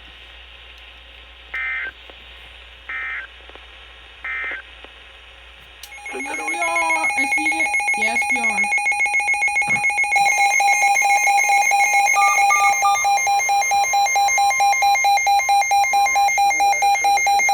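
Emergency Alert System broadcast signal: three short bursts of the SAME digital header data, then, about six seconds in, the loud, steady EAS attention tone, two notes sounding together, which holds to the end. A voice is briefly heard over the start of the tone.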